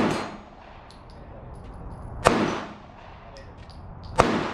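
Handgun shots fired at steel targets: one right at the start, then two more about two seconds apart, each followed by a short echo.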